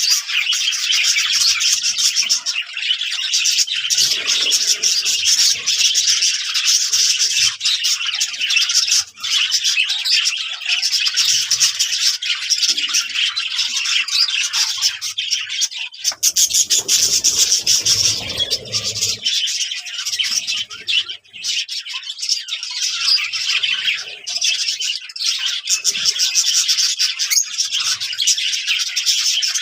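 A flock of budgerigars chattering and warbling continuously, a dense mix of quick chirps, clicks and squeaky notes. About halfway through there is a short low rustle lasting a couple of seconds.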